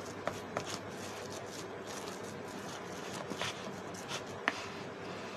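Steel spoon stirring and pressing minced beef kebab mixture in a plastic bowl: quiet stirring with a few sharp clicks of the spoon against the bowl, over a steady hiss.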